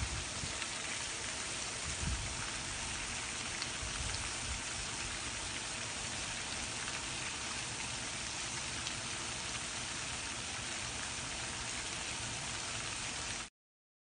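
Steady outdoor ambient hiss with a few low bumps in the first couple of seconds. It cuts off abruptly shortly before the end.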